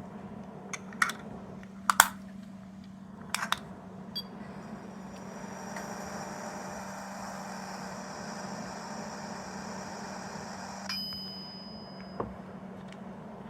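A sound-playing capsule toy being handled: a few plastic clicks, then its tiny speaker plays a steady electronic hum for about seven seconds that cuts off with a short ding. One more click comes near the end.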